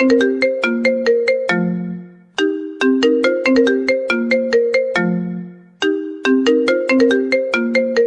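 Mobile phone ringtone tune: a short melody of quick, sharply struck notes that repeats about every three and a half seconds, with a brief pause between repeats.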